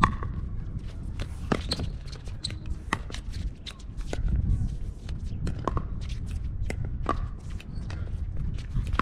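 Pickleball paddles striking a plastic pickleball in a fast doubles rally: a string of sharp pops at uneven intervals, over low wind rumble on the microphone.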